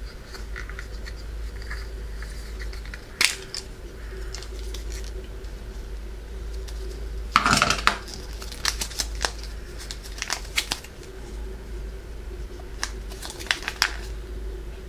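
Handling noise from a plastic gashapon egg capsule being opened and its folded paper instruction sheet pulled out and unfolded: a sharp plastic click about three seconds in, a louder crackle of paper and plastic about halfway through, then scattered paper crinkles.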